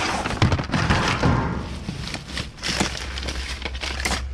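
Irregular clattering, knocking and scraping of discarded objects being shifted and handled while rummaging through a dumpster.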